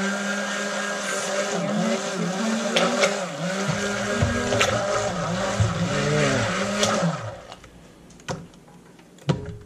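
Handheld stick blender running in thick hot-process soap batter (lard, coconut oil and lye) in a crock pot. Its motor pitch dips again and again as it is worked through the thickening mix, and it stops about seven seconds in, followed by two sharp knocks.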